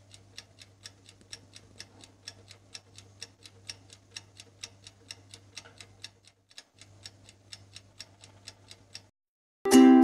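Clock ticking sound effect, an even tick about four times a second over a faint low hum. The ticking stops about nine seconds in, and after a short silence ukulele music starts near the end.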